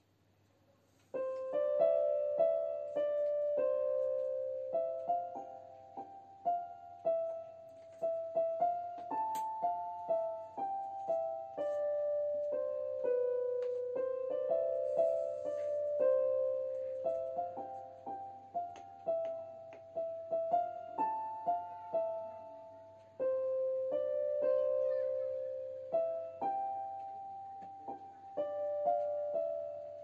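Background piano music, a melody of single notes, starting about a second in.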